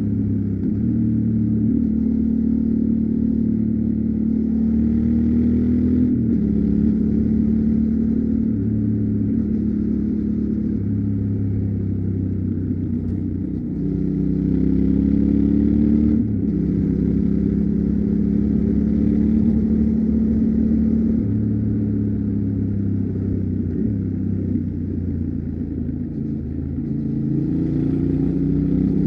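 Yamaha Ténéré 700's parallel-twin engine with its stock exhaust, running under way: the engine note climbs with throttle and drops suddenly at several gear changes, and falls off on the overrun later on.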